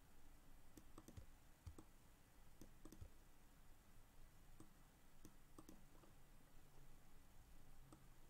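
Faint computer mouse clicks, a dozen or so at irregular intervals, over near-silent room tone.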